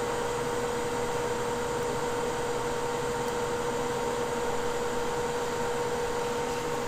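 Hot-air rework station blowing with a steady whir and a constant hum-like tone, heating the glue on a flash drive's circuit board so it comes off more easily.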